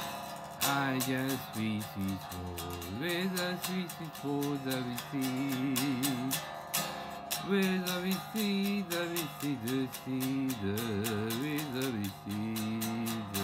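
Electric guitar playing a melody, its held notes wavering with vibrato and some bent up and down, with a steady beat of light clicks behind it.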